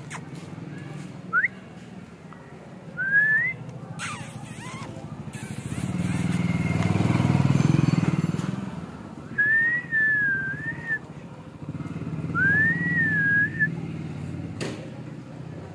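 Someone whistles: two short rising notes first, then two longer notes that waver up and down. A low engine drone from a passing vehicle swells to the loudest point around the middle, then fades.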